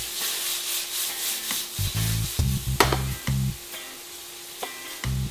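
Thin steak strips sizzling in a very hot wok while being stirred and scraped, with a sharp knock about three seconds in, over background music with a low bass line.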